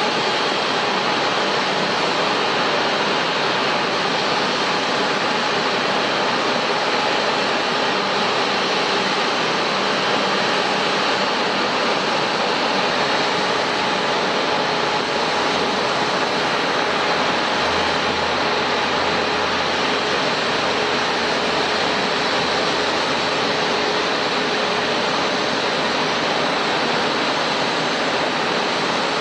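Airbus A350 jet engines running: a steady, loud rushing noise with a faint high whine, holding level throughout.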